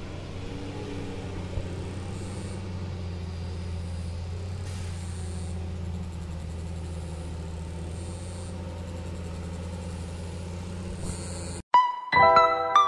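Loaded Tata 4x4 truck's diesel engine running steadily as it pulls up a slippery hill track. Near the end it cuts off abruptly and bright glockenspiel-like music starts.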